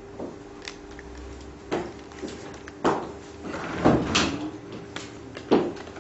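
About half a dozen irregular sharp knocks and clicks, the loudest about four and five and a half seconds in, from people working at laptops around a table, over the steady hum of a ceiling-mounted projector.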